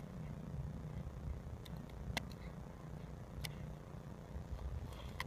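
Nova Scotia duck tolling retriever gnawing a stick, a few sharp cracks of teeth on wood, over a steady low rumble.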